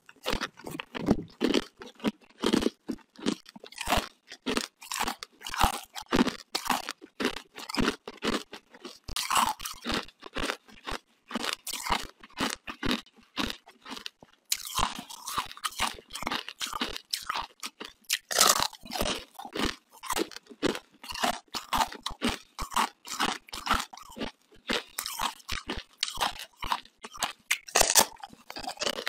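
Biting and chewing a frozen slab of ice set with dark green beads: many sharp, irregular crunches as the ice cracks between the teeth, with chewing in between.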